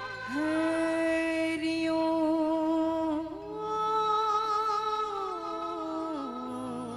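Woman singing a devotional bhajan to Jambheshwar in long held notes: one note held for about three seconds, then a higher one, then a glide down near the end.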